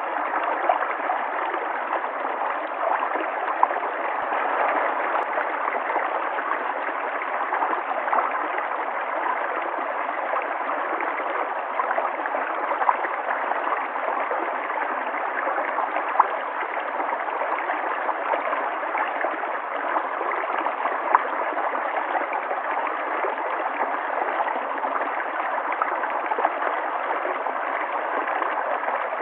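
River water flowing steadily over rocks, a continuous rushing and gurgling with small splashes scattered through it.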